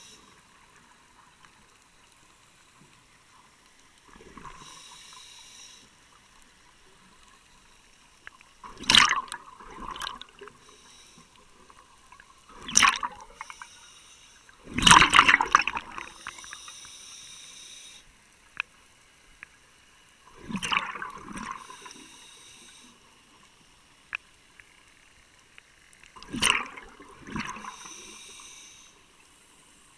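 Scuba diver breathing through a regulator underwater. Exhaled air bubbles out in loud gurgling bursts every four to six seconds, and a softer hiss of air through the regulator comes between them.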